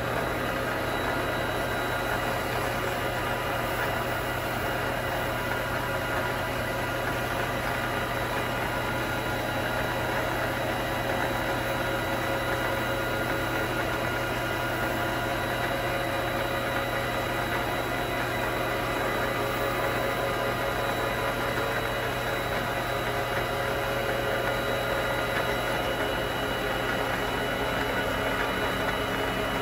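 Vevor MX400 mini lathe running at a steady speed, its motor and drive giving an even hum with several constant whining tones. A strip of emery cloth and Scotch-Brite is held against the spinning punch blank to polish it.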